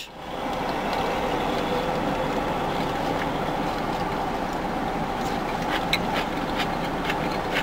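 Steady hum and hiss of a vehicle running, with a few faint clicks about six seconds in.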